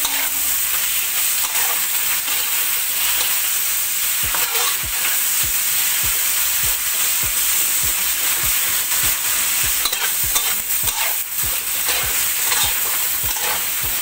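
Pieces of fish sizzling in hot oil in a wok, with a metal spatula repeatedly clicking and scraping against the wok as they are stir-fried.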